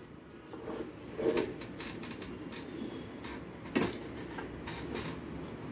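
Fingers working rice on a steel plate, with a few light clicks and knocks of crockery as a small ceramic dish is tipped onto the plate, the sharpest knock a little under four seconds in.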